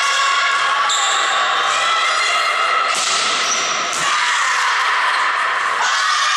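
Volleyball rally in a sports hall: the ball is struck sharply a few times, over continuous high-pitched shouting from girls' voices, echoing in the hall.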